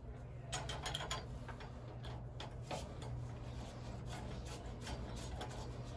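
Scattered light clicks and rubbing from hands and a tool working on the brass pipe fittings of a backflow preventer assembly, over a low steady hum.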